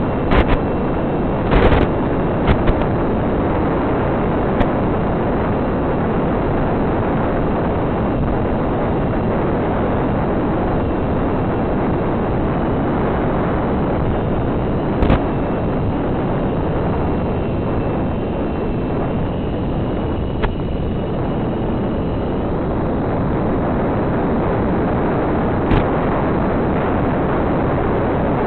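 Steady rushing noise on board a twin-motor FPV model plane in flight, with wind and motor noise blended into one hiss. A few sharp crackles come near the start, about halfway through and near the end.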